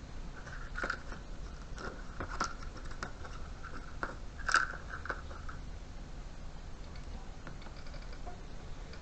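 Small clicks, light knocks and scrapes from handling the CCTV recorder's metal case and fittings. They come scattered through the first five seconds, with a faint thin squeak underneath, then die down.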